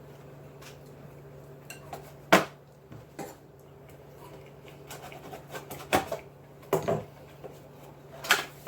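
Hard objects being handled and set down on a table, giving a few sharp clacks and knocks: the loudest about two seconds in, then a cluster near the end. A low steady hum runs underneath.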